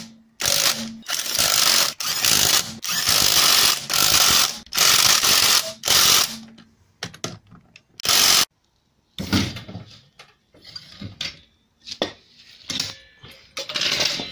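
Cordless impact wrench hammering on a BMW alloy wheel's lug bolts in about seven short bursts over the first six seconds, with one more burst a little later, followed by quieter scattered clanks and knocks.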